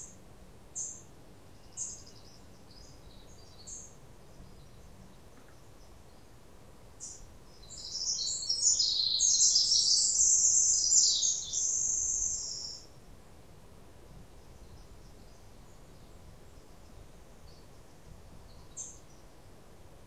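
Songbirds calling: a few short, high chirps in the first few seconds, then one bird sings a loud, rapid run of high notes for about five seconds starting about seven seconds in, and a single chirp near the end.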